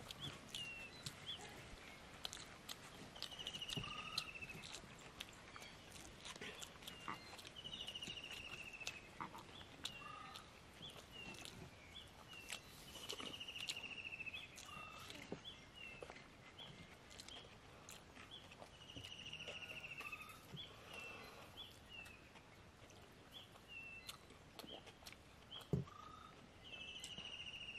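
Faint animal calls outdoors: a short trilled call, about a second long, repeats every few seconds, with scattered short chirps between. Occasional faint clicks and taps are heard too.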